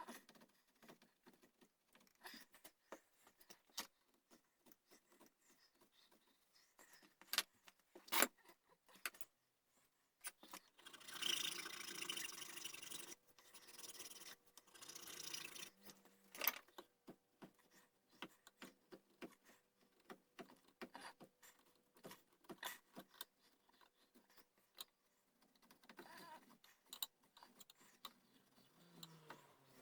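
Hand carving tools working a wooden gunstock: scattered small clicks and taps, with two spells of scraping near the middle.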